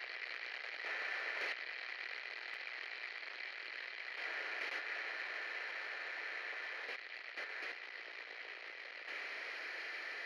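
Steady hiss, with a few faint short knocks and rustles.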